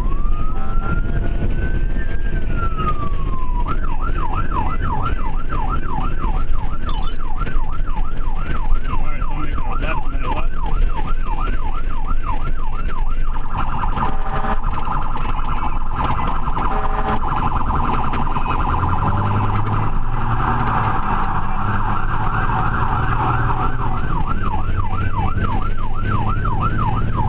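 Ambulance's electronic siren: a slow wail rising and falling, switching a few seconds in to a fast yelp of about two to three sweeps a second, then to a much faster warble for several seconds in the middle, and back to the yelp near the end, over steady road noise.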